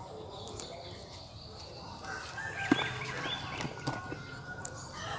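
Outdoor farm-field ambience: faint bird and fowl calls from about two seconds in, with a few light clicks and taps.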